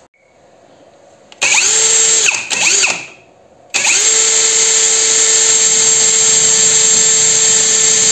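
Small power drilling attachment's motor spinning a drill chuck at high speed, drilling a hole into metal on a lathe. It runs for about a second and a half and stops, then starts again a moment later and runs steadily with a high whine.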